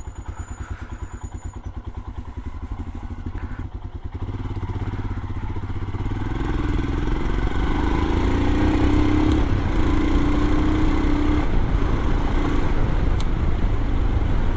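Royal Enfield Himalayan's 411 cc single-cylinder engine thumping evenly at low revs, then getting louder about four seconds in as the bike pulls away and rides on under load.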